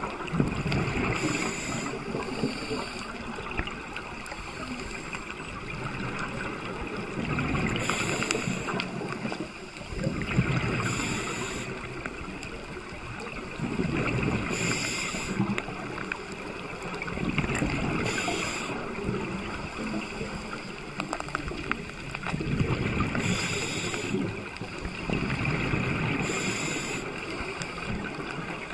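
Underwater sound of a scuba diver breathing: short hisses from the regulator and bursts of bubbling from exhaled air, recurring every few seconds over a steady wash of water noise.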